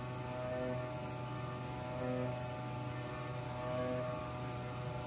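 Slow background music: a sustained drone with soft notes swelling about every two seconds, over a steady low hum.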